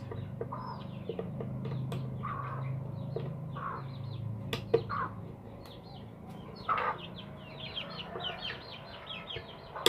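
Chickens clucking now and then over a steady low hum, with a few sharp clicks and a brief patter of light ticks near the end.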